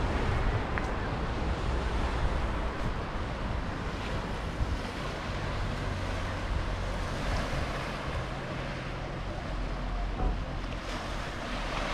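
Small sea waves washing steadily onto a pebble beach, with wind rumbling on the microphone.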